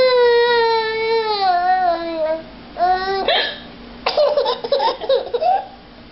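A baby's long high-pitched vocal sliding slowly down in pitch. About three seconds in comes a short, sudden hiccup, followed by a baby's choppy bursts of laughter.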